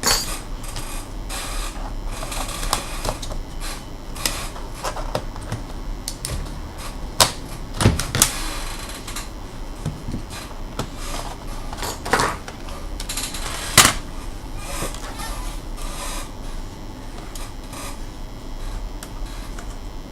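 Irregular small clicks and clacks of hands and small tools working on an HP 255 G5 laptop's plastic case and parts, with a few sharper knocks about a third and two-thirds of the way through.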